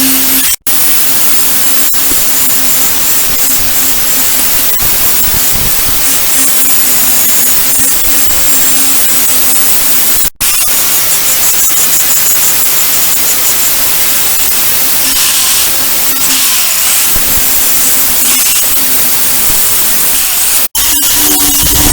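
A power tool running steadily with a constant motor hum and a hiss of abrasive noise, cutting out for an instant three times.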